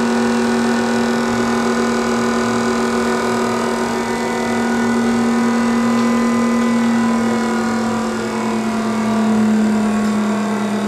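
Parker Majestic internal grinder running: a steady motor hum with a strong low tone and several overtones, dipping and swelling slightly in level and pitch near the end.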